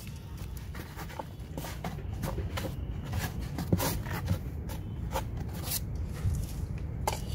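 A hand spreading and smoothing a thin layer of soil in the bottom of a styrofoam box: irregular scratchy rustles and light pats.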